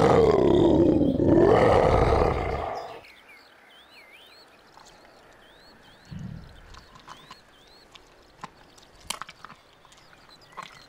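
Loud, drawn-out feline yowl lasting about three seconds, its pitch dipping and then rising again before it stops. Quieter high chirps and a few light clicks follow.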